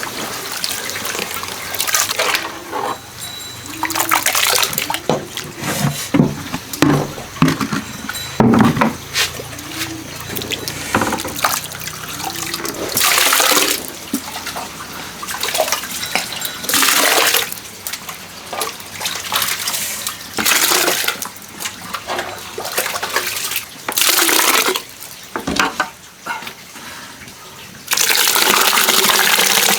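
Water splashing and pouring in irregular bursts, some about a second long, with a longer steady gush near the end.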